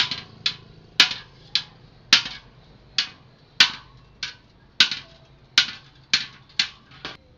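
Hammer striking metal: about thirteen sharp blows at a slightly uneven pace, a little under two a second, each with a short bright ring.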